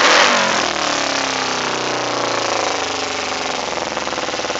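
2008 Kawasaki Ninja 250R's parallel-twin engine blipped once, its revs falling slowly over about two seconds and settling into a high idle. The slow drop back to idle is the rev problem that the owner hopes a carburettor rejet will cure; the bike runs rich after an aftermarket exhaust and air filter.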